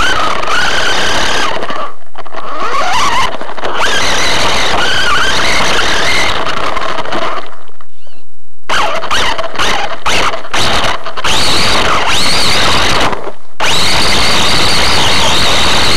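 A fast RC car's motor and drivetrain whining and rattling, recorded by a camera mounted on the car. The pitch rises and falls with the throttle, and the sound cuts off abruptly several times, the longest pause about halfway through.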